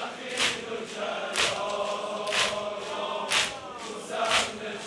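A large crowd of mourners chanting a noha together, with chest-beating in unison about once a second.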